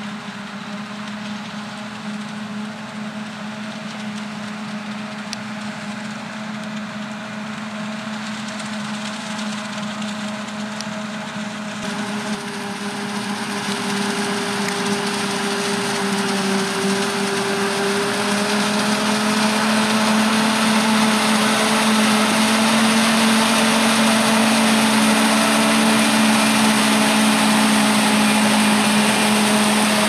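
Claas Jaguar 970 self-propelled forage harvester chopping maize, its engine and chopper making a steady drone, with the John Deere tractor hauling the silage trailer running alongside. The sound grows louder from about halfway through as the machines get nearer.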